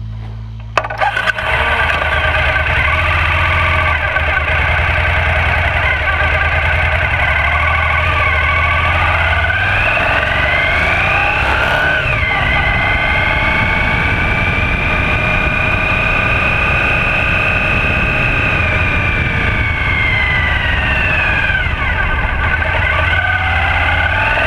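Small hexacopter's six brushless motors and propellers whining, their pitch rising slowly, holding and then falling away. A low steady rumble runs under them for the first ten seconds.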